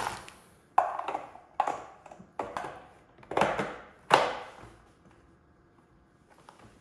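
A garden hose being worked into the hub of a plastic hose reel, scraping and knocking against the plastic in about five short, sharp handling noises, each fading within half a second.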